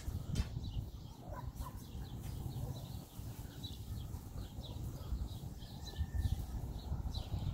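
Small birds chirping: many short, high chirps, coming thicker in the second half, over a low rumble.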